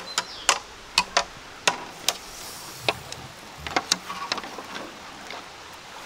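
Metal shashlik skewers knocking and clinking against the steel mangal as they are laid over the coals: a string of sharp, irregular clicks.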